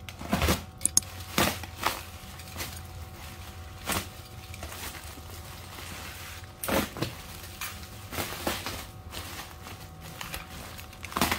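Black plastic parcel wrapping being slit with a cutter knife and handled: irregular sharp crackles and rustles of the plastic, over a steady low hum.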